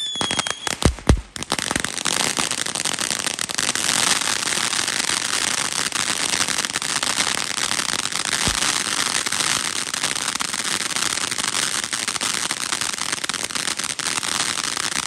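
Consumer fireworks: a couple of sharp bangs about a second in, then dense, continuous crackling.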